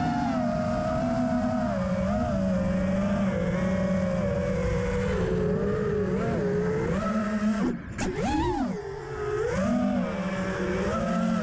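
A 5-inch FPV quadcopter's brushless motors (T-Motor F40 Pro III, 2400 KV) spinning three-blade props, heard from a camera on board. The buzzing whine rises and falls in pitch with the throttle, over a rush of air. About eight seconds in it drops away briefly, then swoops up and back down.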